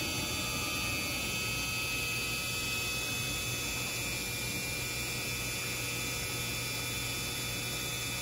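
Breton NC300K26 CNC stone contouring machine powered up, its head travelling along the bridge: a steady electrical hum with several faint high whining tones.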